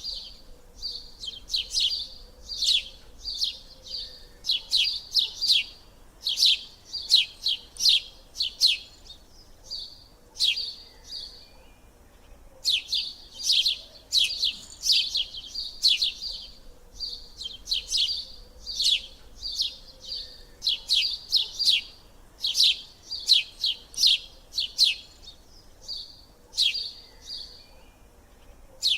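Small birds chirping: clusters of quick, sharp, high chirps, several a second, broken by short pauses.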